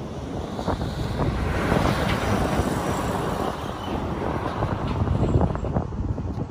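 Road traffic: a car passing, with wind buffeting the microphone.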